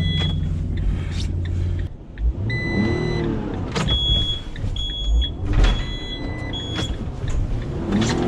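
Delivery van engine revving up and down as the driver tries to rock free of the snow he is stuck in; the steady engine note drops out about two seconds in before the revving. A short electronic warning chime beeps over and over throughout.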